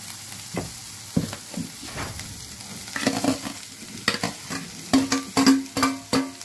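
Boiled potato cubes tipped off a steel plate into a pan of frying masala, over a faint sizzle. From about halfway there is a quick run of metal knocks and clatter as the plate and potatoes hit the pan, some knocks followed by a brief ring.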